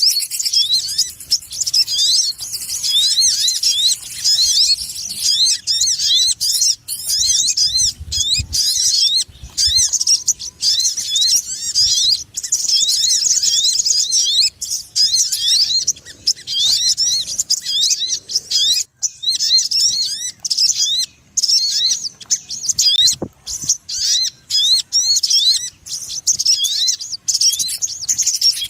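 Sogon bird lure call: fast, excited runs of short, high chirping notes repeated in quick succession, broken now and then by brief pauses.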